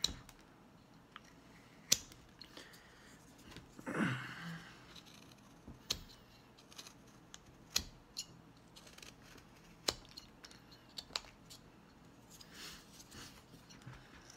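A whittling knife shaving a small block of wood by hand: irregular sharp clicks and snaps as the blade slices off chips, with one longer, louder rasp about four seconds in.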